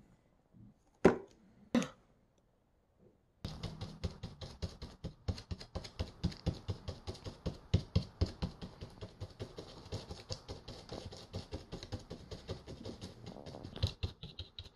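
Stencil brush pouncing acrylic paint through a plastic stencil onto a canvas: quick dabbing taps, several a second, starting a few seconds in and keeping up steadily. Two sharp knocks come before it, within the first two seconds.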